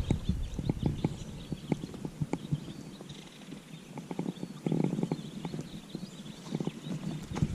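Irregular light knocks and taps in a small inflatable fishing boat, with wind rumbling on the microphone at the start and again near the end.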